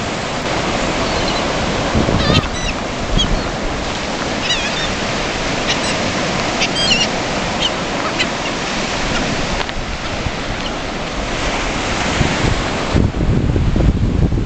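Surf breaking and washing up the beach as a steady rush, with short high calls of gulls several times in the first half. Wind buffets the microphone near the end.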